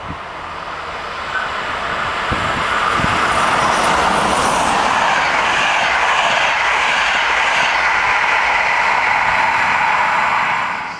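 Passenger train passing close at speed: the rumble and rush of wheels on rails builds over the first few seconds as it approaches, then holds steady and loud while the coaches go by, with a few brief low knocks early on. The sound cuts off abruptly near the end.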